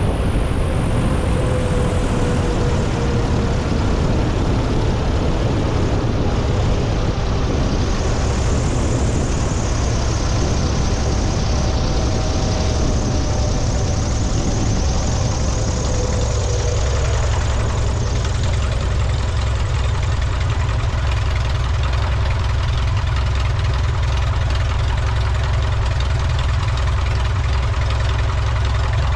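Avid Flyer light aircraft's engine running steadily. About halfway through, the higher rushing sound fades and a steady low drone carries on.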